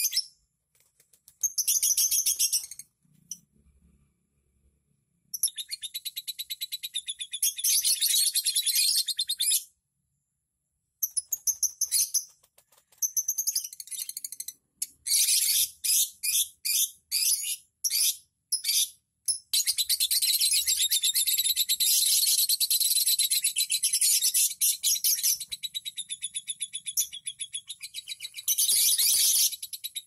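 Lovebirds chattering: shrill, rapid chirping in bouts, with a short lull about ten seconds in.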